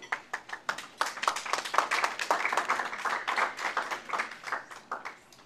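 Audience clapping. A few scattered claps thicken into steady applause about a second in, then taper off near the end.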